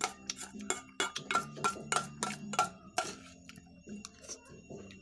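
Metal spoon clinking and scraping against a stainless steel bowl while scooping rice: a quick run of sharp clinks over the first three seconds, then fewer.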